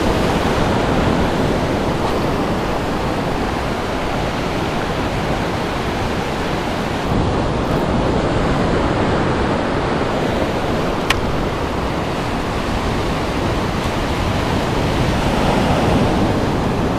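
Ocean surf breaking and washing up the sand in a steady rush. There is one short click about eleven seconds in.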